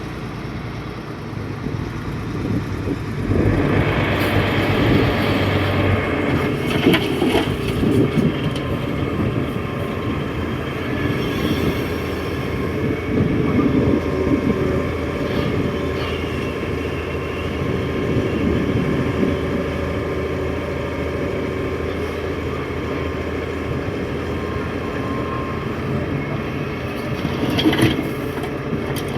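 Hitachi 330 hydraulic excavator working: its diesel engine runs steadily and grows louder under load about three and a half seconds in, with a few metal clanks during the work.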